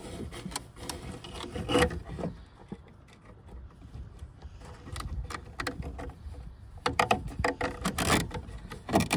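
Handling noise from an NKE Flash'O sensor's plastic box and cable being fitted against a wooden meter-cabinet panel: scattered rubbing, light knocks and clicks, with a denser run of knocks near the end.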